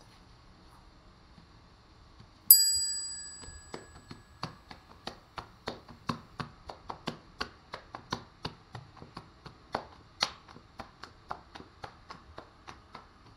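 A single bright bell-like ding, then a quick series of soft slaps, about three a second, as hands pat and stretch a round of bread dough flat.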